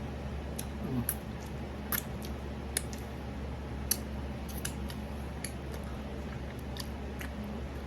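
Mouth sounds of eating saucy barbecue chicken wings: soft wet smacks and clicks roughly once a second, over a steady low hum.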